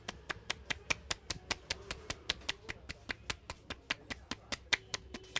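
A barber's hands tapping quickly on a client's head in Indian head-massage percussion: sharp, even claps at about five a second.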